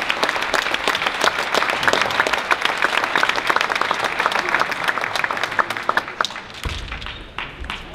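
Spectators in a sports hall applauding: dense clapping that thins out and dies away over the last two seconds.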